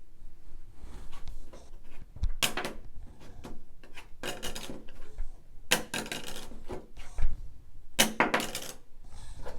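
Metal credit card being handled and tapped: four short clinking rings, each about half a second long, with quieter rubbing and scraping between.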